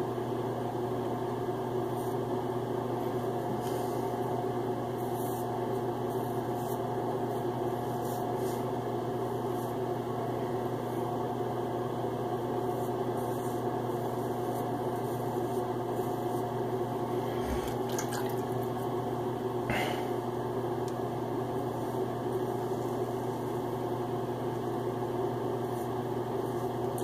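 A steady low machine hum with several pitches in it, unchanging throughout, with a few faint short scrapes now and then from a safety razor drawn over the scalp.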